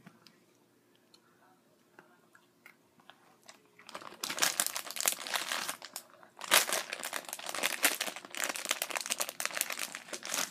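Crinkling of a foil chip bag of Flamin' Hot Cheetos as a hand handles and rummages in it, starting about four seconds in and going on in loud spells. Before that there are only faint chewing clicks.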